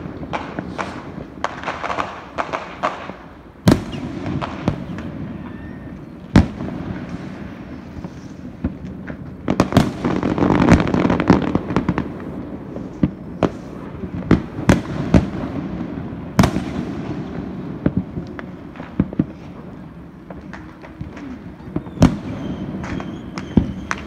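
Fireworks going off: irregular sharp bangs throughout, with dense bursts of rapid crackling near the start and again about ten seconds in.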